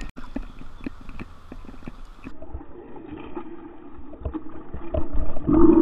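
Spinning reel retrieving a lure, with a quick run of ticks. Then a fish strikes at the surface with a splash, and the reel gives a louder, steady whir near the end as a hooked largemouth bass pulls against the line.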